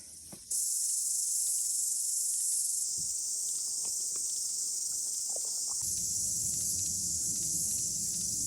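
A steady, high-pitched insect chorus shrilling, coming in about half a second in. A low rumble joins it from about six seconds in.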